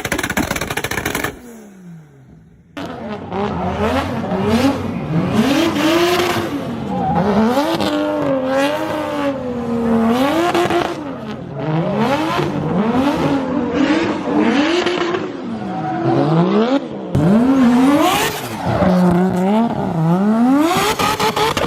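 Turbocharged car engine revving hard and running up through the gears, its pitch climbing and dropping again and again. It goes briefly quieter about two seconds in.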